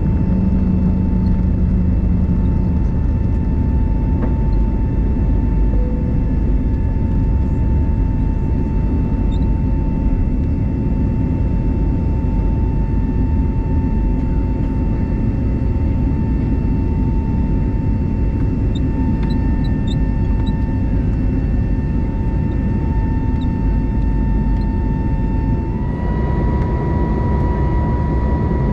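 Airbus A320neo jet engine noise heard inside the passenger cabin: a steady deep rumble with a constant whine over it, the whine stepping up slightly in pitch near the end.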